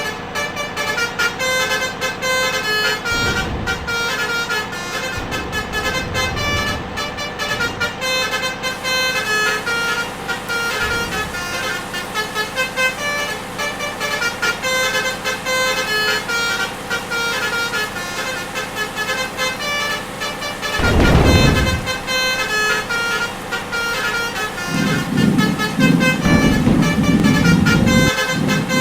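Multi-tone Basuri 'telolet' bus horns playing quick melodic runs of toots over and over, as vehicles whoosh past, one loudly about two-thirds of the way in. A deep rumble sets in near the end.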